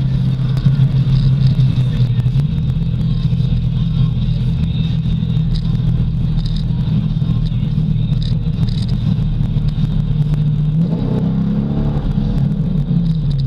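Modified 2007 Corvette C6's LS2 V8 with aftermarket exhaust, heard from inside the cabin: a loud, steady drone while cruising, with a brief rise and fall in pitch about eleven seconds in as the engine is revved up and eased back.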